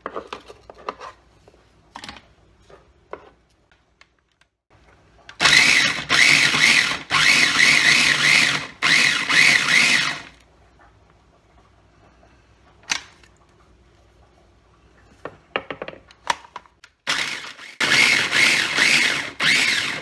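Mini food processor grinding shallots and garlic in several short pulses, from about five to ten seconds in and again near the end. Before the first pulses there are a few light knife taps on a cutting board.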